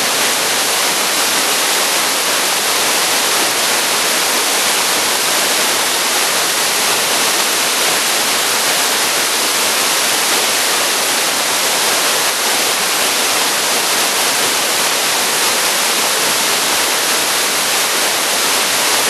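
Waterfall running steadily: a loud, even rush of falling water, hissy and bright, with little low rumble and no change through the whole stretch.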